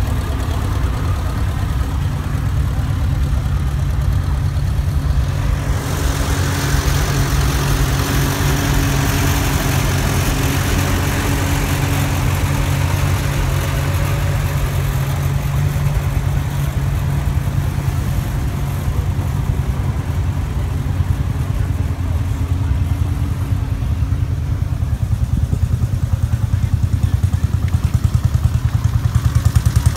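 Vintage tractor engines running at low speed as tractors drive past, a red Farmall going by close around the middle. Near the end a pulsing engine beat grows louder.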